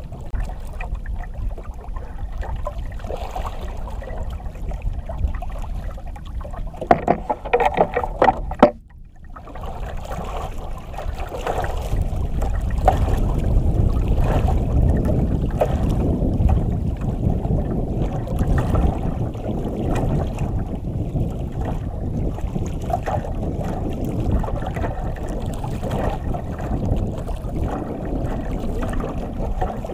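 Wind buffeting the microphone and water lapping at the hull of a small outrigger boat at sea, heavier in the second half. About seven seconds in there is a short burst of clicks and knocks, followed by a brief drop-out.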